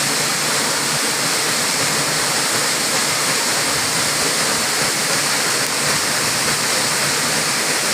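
Waterfall pouring: a steady, loud rush of falling water with no let-up.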